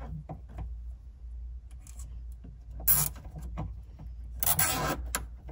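Plastic wiring-harness connectors and clips being unclipped and handled by hand: a few light clicks, a sharp snap about three seconds in, then a brief scraping rub near the end.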